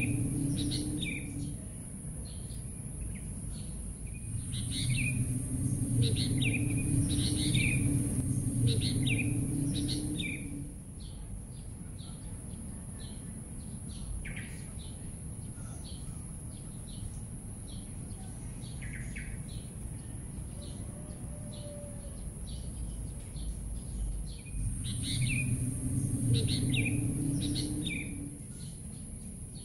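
Small birds chirping in short repeated calls over a steady high-pitched hiss. A low rumble sits underneath during the first ten seconds and again near the end.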